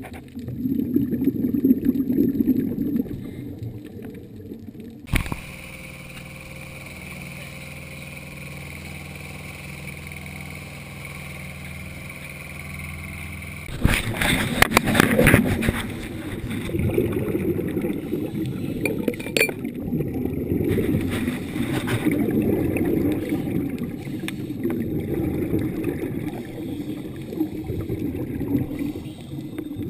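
Muffled underwater sound through a dive camera's housing, with loud bubbling bursts of a scuba diver's regulator exhaling close to the camera from about halfway through. Before that there is a quieter steady hum for several seconds.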